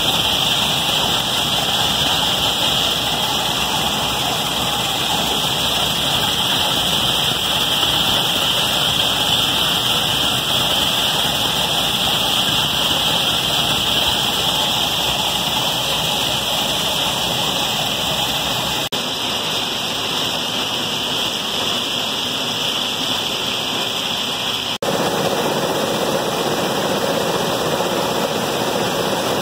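A grain-cleaning machine running, its load of pale seeds moving and pouring over a mesh screen: a steady rushing noise, broken by two short dropouts in the latter half.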